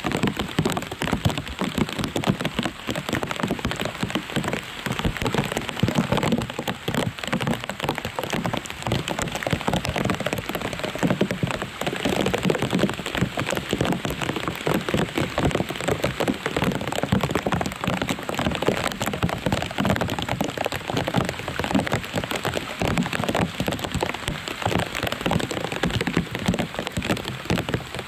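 Steady rain falling: a dense, even run of small drop hits.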